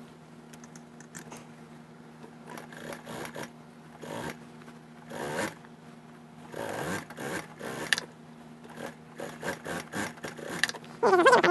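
Fur and lining fabric of a mink vest rustling and rubbing in short bursts as they are handled and lined up at an industrial sewing machine, over a steady low hum. Near the end, a brief louder sound with a wavering pitch.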